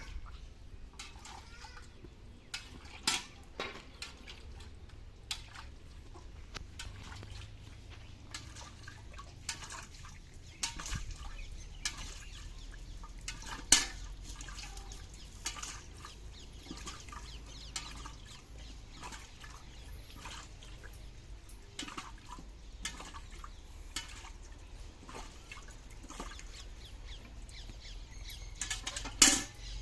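Milk squirting into a pail as a cow is milked by hand: short, irregular squirts, a few of them noticeably louder, over a low steady rumble.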